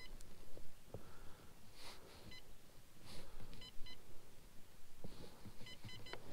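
Short electronic beeps, sounded singly and in quick runs of two to four, with a few soft swishes in between.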